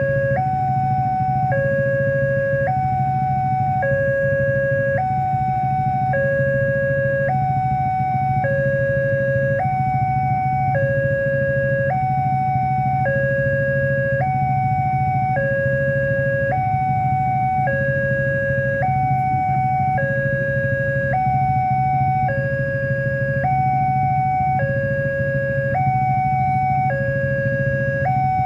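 Railroad level-crossing warning alarm sounding its electronic two-tone signal, a lower and a higher note alternating about every three-quarters of a second without a break, over a steady low hum. The alarm means the barriers are down and a train is approaching.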